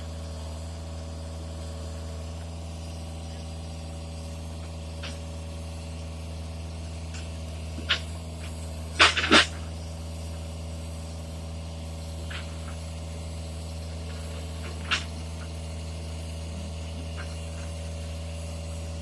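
Engine running steadily at idle, a constant low hum, with a few sharp knocks: one about eight seconds in, a close pair about a second later, and another near fifteen seconds.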